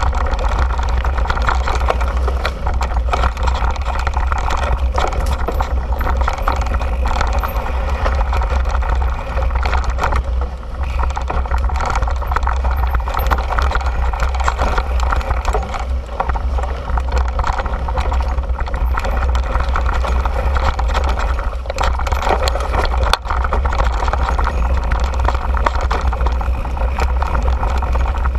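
Mountain bike rolling fast down a rocky dirt singletrack, heard from a camera mounted on the bike: a steady, loud, deep rumble with constant small clatters and knocks from the tyres and bike over rocks and roots.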